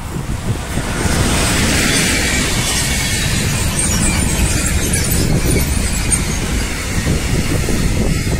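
A train passing close by: a steady rumble of wheels on rail that grows louder about a second in, with scattered high squeaks in the middle.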